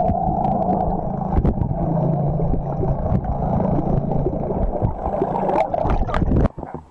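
Underwater recording of a trolling boat's motor: a steady, muffled low drone with rushing, gurgling water and scattered clicks. It drops off suddenly near the end.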